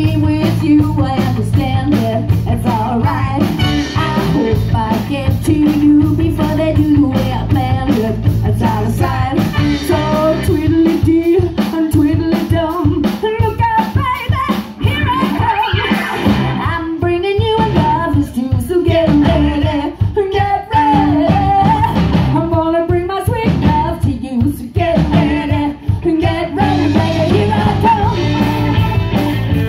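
Live rock band playing: electric guitar, bass guitar, drum kit and keyboards, loud and steady. The band thins out in the middle, where a wavering lead line carries over a lighter backing, then plays full again near the end.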